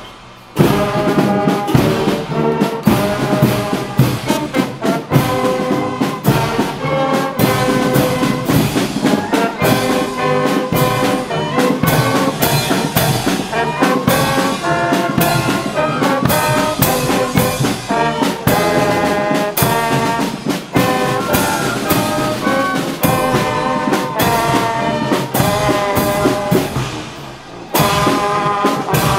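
Miners' brass band playing a march while marching, with brass and regular bass-drum beats; the music starts about half a second in and dips briefly near the end.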